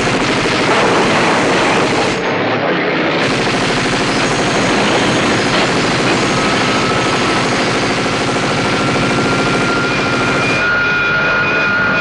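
A mounted machine gun firing in a long, rapid stream against the engine of a German reconnaissance airplane. Over the second half a high whine climbs slowly in pitch as the hit plane goes down.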